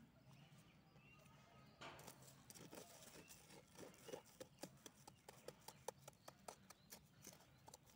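A small hand blade scraping and knocking into loose, sandy soil: faint short scrapes and ticks that begin about two seconds in and come quicker and closer together toward the end.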